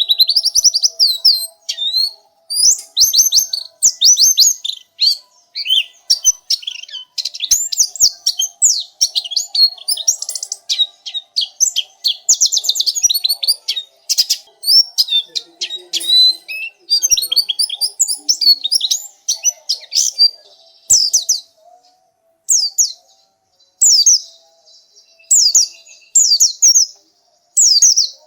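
Pleci (white-eye) song: rapid, high, twittering chirps and trills, dense for most of the stretch, then breaking into short separate bursts about once a second near the end.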